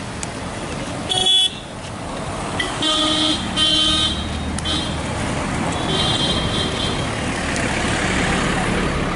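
Vehicle horns tooting over steady road-traffic noise. There is a short, loud toot about a second in, two more toots around the third and fourth seconds, and a fainter one near six seconds.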